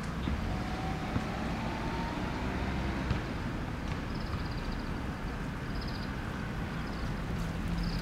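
Steady low rumble of distant motor traffic, with a few short, faint, high-pitched bird chirps in the second half.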